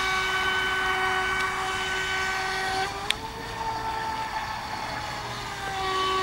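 Electric radio-controlled racing boat's motor running at speed: a steady high whine with overtones. A little past halfway the whine grows quieter and rises slightly in pitch, with one sharp click, then drops back to its first pitch near the end.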